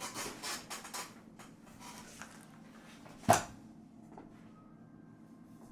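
Rustling and handling noises, then a single sharp knock about three seconds in.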